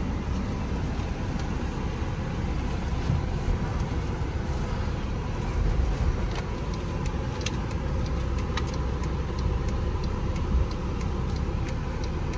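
Mercedes-Benz R350's 3.5-litre V6 running, heard from inside the cabin as a steady low rumble with a faint hum over it. A few light clicks come and go.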